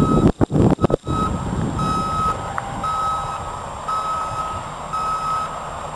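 Triaxle dump truck backing up: its backup alarm beeps steadily about once a second over the low rumble of the engine. A few loud thumps in the first second.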